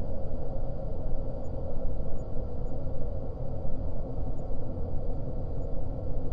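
Dungeon air ambience: a steady low drone with a faint held hum and no distinct events.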